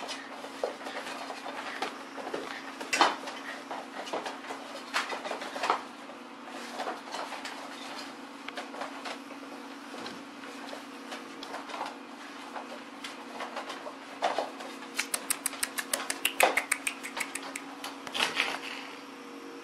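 Husky puppies scuffling over a rope toy on a vinyl floor: scattered clicks and scrapes of claws and the tugged toy, with a fast run of ticks about three-quarters of the way in, over a steady low hum.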